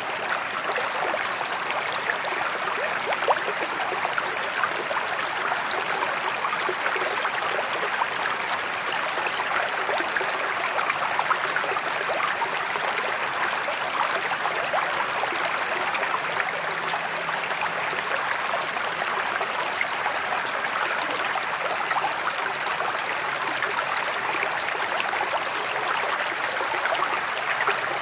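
Pond spillway waterfall pouring a sheet of water into a koi pond: a steady splashing rush that holds even throughout.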